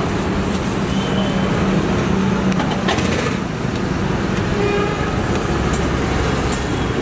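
Steady roadside traffic noise: engines and tyres of passing vehicles, with a few short horn toots.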